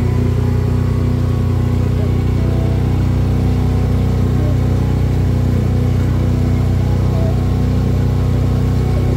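Small boat's outboard motor running steadily as the boat moves along the water.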